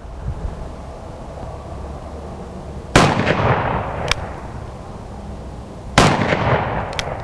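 Two shots from a .36 caliber cap-and-ball black powder revolver, about three seconds apart, each ringing out and dying away over a second or so. A short sharp click follows about a second after each shot.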